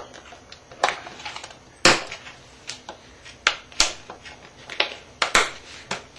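The clear front cover of an inexpensive wall clock being pressed back onto the case rim, snapping into place with a series of sharp clicks at irregular intervals.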